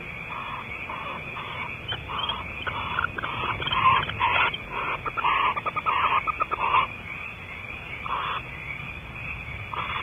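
Barn owls calling at the nest during mating: a run of short calls that grows louder and speeds into a rapid pulsing chitter from about three to seven seconds in, then eases back to spaced single calls, over a steady hiss.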